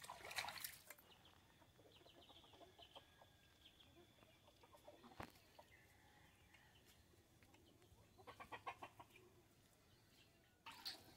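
Faint clucking of domestic fowl, with a quick run of clucks about eight seconds in and a single sharp click near the middle.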